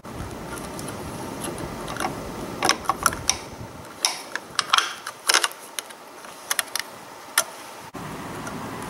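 A lithium battery cell being pulled out of its snap-in plastic battery holder: a run of sharp plastic clicks and rustling handling over several seconds.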